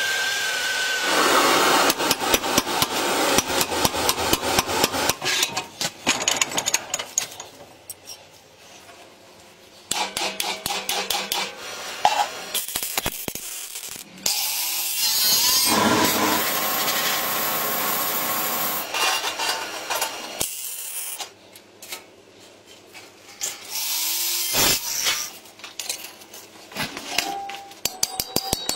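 Workshop tools cutting and rubbing at wood or similar material. Runs of rapid, even strokes alternate with stretches of steady noise, and the work pauses now and then.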